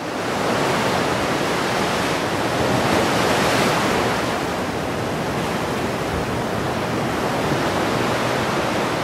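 A steady, even rushing noise like sea surf, swelling in over the first half-second and then holding level.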